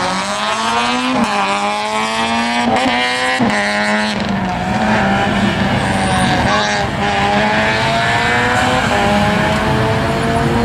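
Slalom race car's engine under hard acceleration. The revs climb and cut back sharply three times in the first few seconds, then the engine pulls on at a fairly steady, slowly rising pitch.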